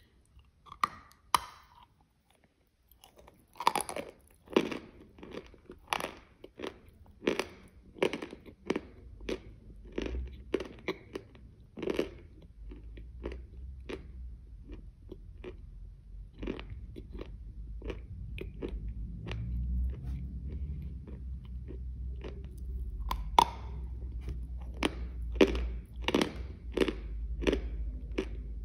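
Close-miked chewing of a mouthful of mega zefir with a chocolate-crumb coating: a crunchy bite about a second in, then steady crunchy chewing, about one or two crisp crackles a second.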